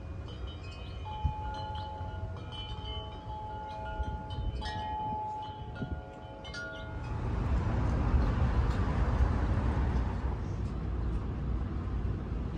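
Wind chimes ringing: several sustained metallic tones at different pitches, struck again and again with light taps. About seven seconds in they give way to a louder, steady rushing noise with a low rumble.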